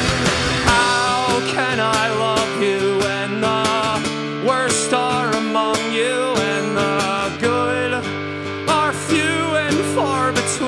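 Rock band music without vocals: guitar with a wavering melodic lead line over sustained notes. It is dense and noisy for the first second or so, then thins to the held notes and melody.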